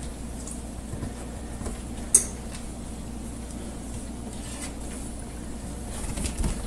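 Light clicks and scuffles of a dog and a cat playing over a toy on a hard floor, with one sharp click about two seconds in and a few low thumps near the end, over a steady low hum.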